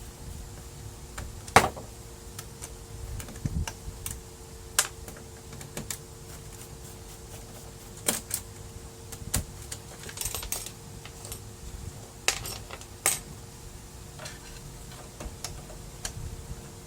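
Irregular plastic clicks and knocks from a Brother laser printer's parts being handled and unclipped during disassembly, the sharpest about a second and a half in, over a faint steady hum.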